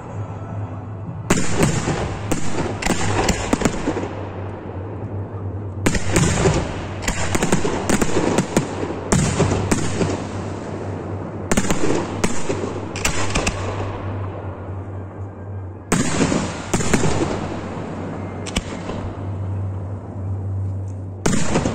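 Professional fireworks display: aerial shells and battery cakes bursting in volleys of rapid sharp bangs. Each volley fades out, and a new one starts about every five seconds, five times in all.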